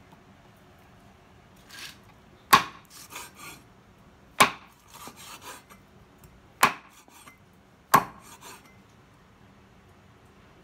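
A large knife chopping a raw pork tail into rounds on a wooden chopping block: four sharp chops, each followed by a few lighter knocks and scrapes.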